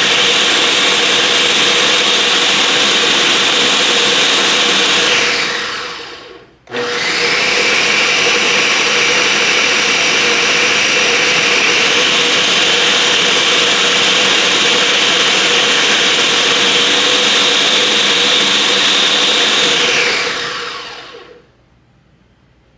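Electric food processor motor running, blending cooked apples into Pop Tart filling. It winds down to a stop about six seconds in, starts again at once, and runs steadily for about thirteen seconds before spinning down near the end.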